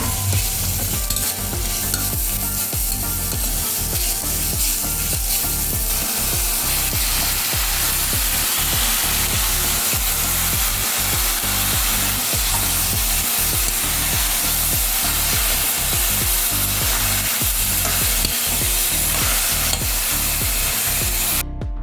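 Garlic frying in hot mustard oil in a pan, a steady loud sizzle that cuts off suddenly near the end.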